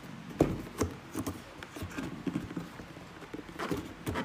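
A cardboard shoebox being handled and turned in the hands: a string of irregular light knocks and taps of fingers and box edges on cardboard, the loudest about half a second in.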